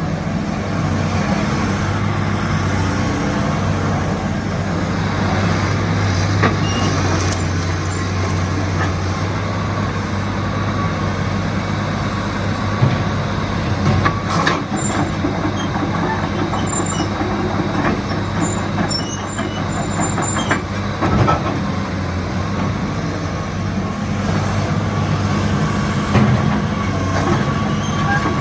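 Hitachi EX225USR hydraulic excavator running: a steady diesel engine hum with a faint high whine, broken by a few sharp metallic clanks.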